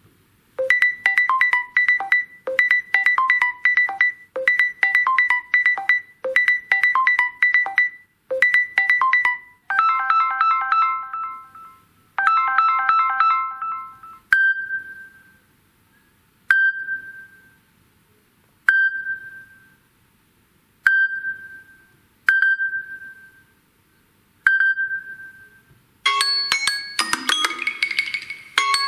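Samsung Galaxy S21 Ultra ringtones playing one after another. First a quick plinking figure repeats about every two seconds, then two held chime chords, then a single bell-like ping about every two seconds, and near the end a busier, faster tune starts.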